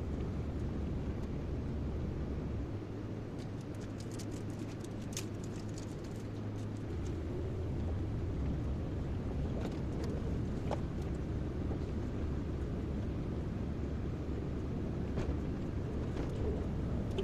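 Kobelco excavator's diesel engine running steadily, its note shifting for a few seconds early on, with a scatter of short clicks and knocks.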